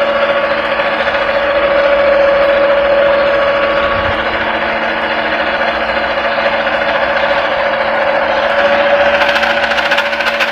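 Electric noodle machine's motor running steadily with a constant hum while a dough sheet is pressed through its flattening rollers. A fast clicking joins in near the end.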